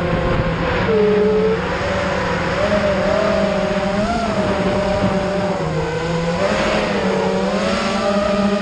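FPV racing quadcopter's brushless motors and propellers whining, the pitch rising and falling as the throttle is worked during a fast low pass, over a steady rushing noise.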